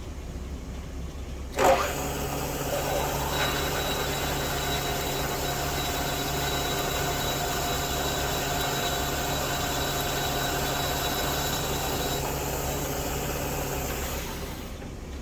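Milling machine spindle starting with a sudden jolt about a second and a half in, then running steadily while the tool cuts, with a thin high whine from about three seconds in until near twelve seconds. The spindle winds down near the end.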